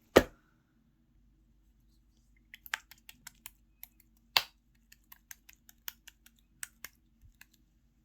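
Clear slime being pressed and played with, giving a loud pop at the start and, after a short pause, a quick irregular run of small sharp clicks and pops, one louder about four and a half seconds in.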